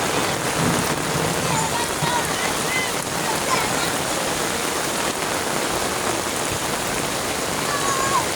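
Heavy rain falling steadily, a dense even hiss of drops hitting the ground.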